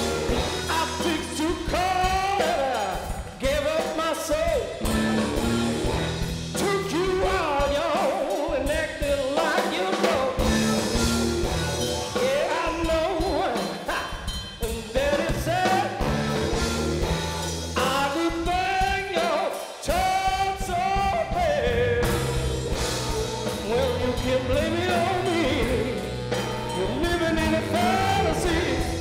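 Blues-rock band playing live: drum kit and electric guitars keep a steady groove, under a lead melody that bends and slides in pitch.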